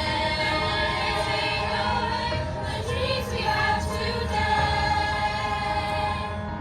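Choir singing in long held notes.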